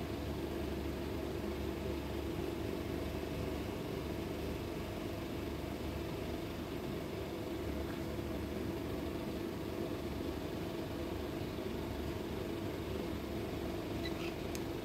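Steady mechanical hum with no change in pitch or level, and a few faint light ticks near the end.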